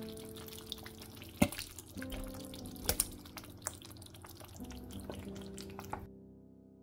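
Soft background music over a pan of simmering stew, with scattered wet pops and plops as pieces of fish in tomato sauce are dropped in and stirred. The pops stop near the end, leaving only the music.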